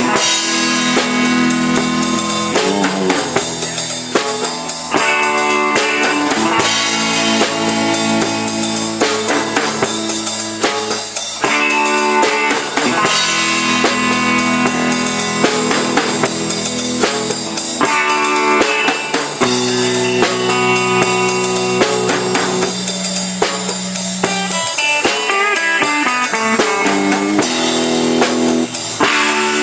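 Live rock band playing an instrumental passage: electric guitar chords held and left to ring for a few seconds at a time, over a drum kit.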